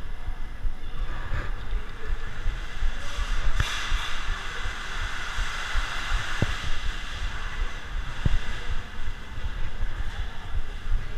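Camera handling noise: an uneven low rumble with rustling, and a few sharp clicks as a fabric backpack is handled.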